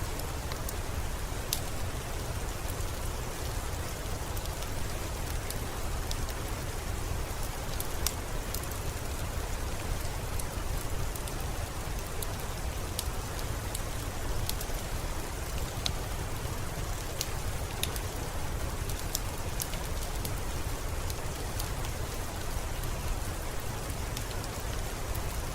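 Steady rain with a low rumble underneath, and scattered sharp crackles from a wood fire burning in a fireplace.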